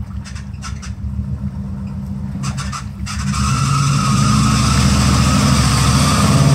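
Square-body Chevrolet Suburban's engine pulling under load while stuck in a mud hole, revving harder about three seconds in as the tyres spin and churn mud and water. A few sharp knocks in the first three seconds.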